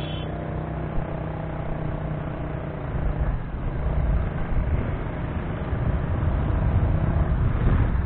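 Road traffic heard from a moving vehicle: a steady engine hum, joined from about three seconds in by a growing low rumble of wind and road noise.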